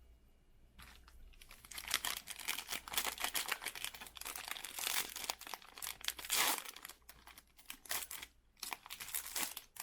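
Foil trading-card pack wrapper crinkling and tearing as it is ripped open and handled, starting about a second in and loudest around the middle, then in short scattered crinkles near the end.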